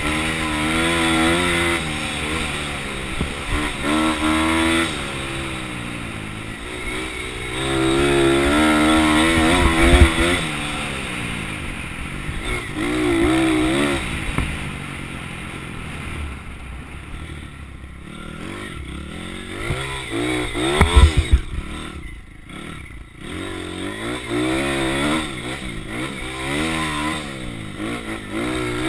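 Small single-cylinder pit bike engine revving up and falling back over and over as it is ridden along a bumpy dirt trail. Short heavy thumps come about ten seconds in and again around twenty-one seconds, with the loudest peaks at these moments.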